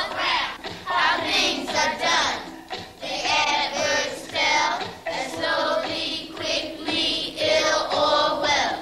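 A class of young children chanting a rap in unison: rhythmic phrases in high voices, a classroom rap drilling standard English grammar.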